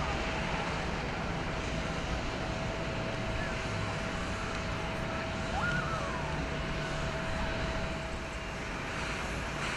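Jet airliner engines running at an airport: a steady rumble and hiss with a faint constant tone.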